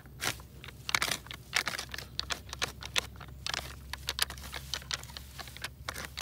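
Scuffle hoe blade scraping through loose dirt in quick, irregular strokes, crunching and tearing as it rips crabgrass out roots and all.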